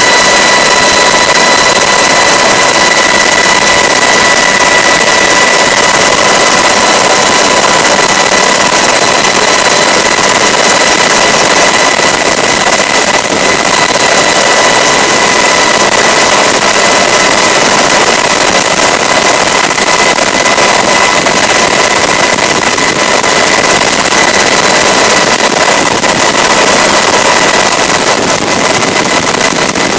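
Coast Guard MH-60 Jayhawk helicopter in flight, heard from inside the cabin: a loud, steady rush of engine, rotor and wind noise with a few steady high whining tones on top.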